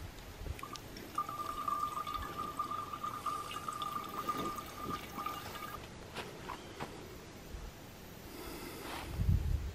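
Filtered water running in a thin stream from a hanging gravity water filter into a stainless steel bottle, with a steady ringing tone through the middle few seconds. A low rumble sounds near the end.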